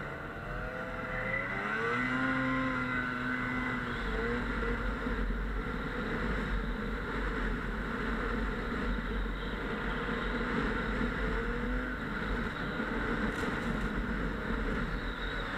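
Snowmobile engine running under way, its pitch climbing about a second and a half in as it revs up, then holding fairly steady with small rises and dips.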